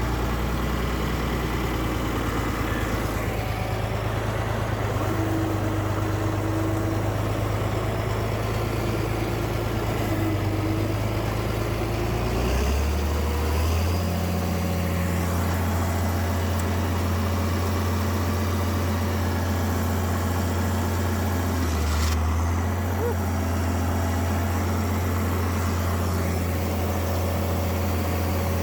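John Deere 4020 tractor engine running steadily under a round baler, stepping up to a higher engine speed about halfway through. A brief dip and a sharp click come near the end.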